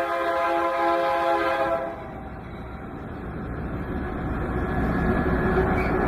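BNSF freight locomotive's air horn sounding a steady chord that cuts off about two seconds in, followed by the train's rumble growing louder as it approaches.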